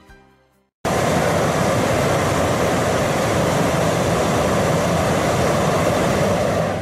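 Hot-air balloon propane burner firing: a loud, steady roar that cuts in abruptly about a second in and holds for about six seconds, then drops away near the end.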